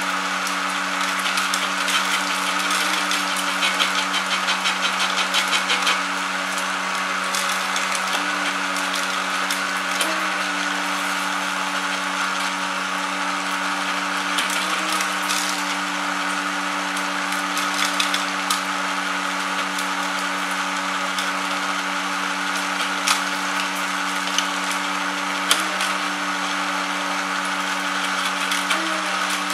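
Homemade sunflower-seed huller running: its small electric motor hums steadily while seeds and husks rattle and tick as they are flung through the drinks-can drum and wooden housing. The rattling is busiest in the first few seconds.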